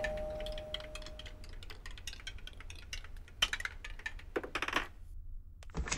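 A doorbell chime dying away in the first second and a half, then scattered light clicks and knocks, with short clatters about three and a half and four and a half seconds in.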